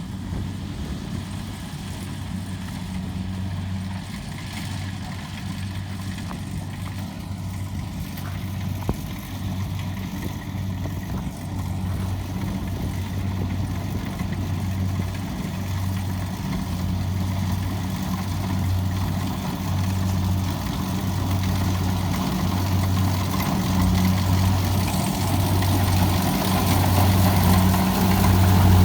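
Kubota DC70 combine harvester's diesel engine running steadily with a low hum, growing gradually louder toward the end.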